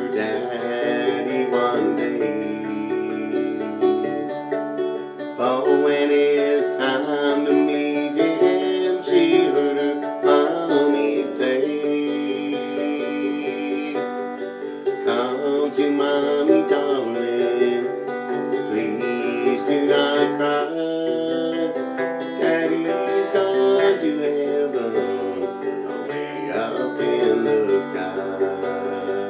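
Metal-bodied resonator guitar played with a bright, twangy ring, accompanying a man singing a slow country song in phrases, with short gaps between the lines.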